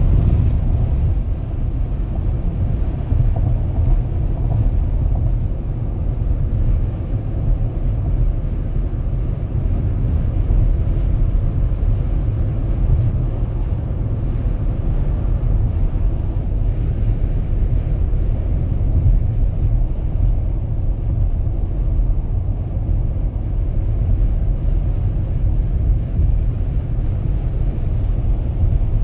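Steady low rumble of a car driving on a highway, road and engine noise heard from inside the cabin.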